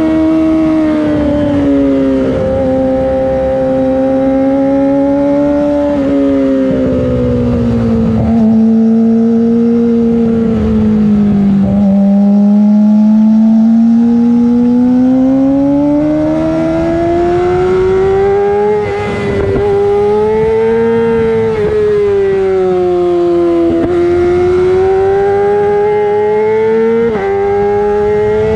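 Yamaha R6 inline-four running through a LeoVince full exhaust system while being ridden. The revs sink slowly for the first twelve seconds or so, then climb steadily, with several quick breaks where the rider changes gear.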